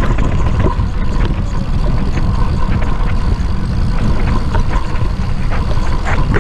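Mountain bike rolling fast down a dry dirt trail: wind buffets the camera microphone in a steady low rumble over the tyre noise, with scattered knocks and rattles as the bike goes over bumps.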